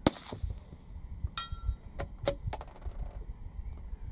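A single .22 rimfire rifle shot from an Anschutz 1710 firing RWS Special Match, followed about a second and a half later by a short metallic ring and then a few sharp clicks.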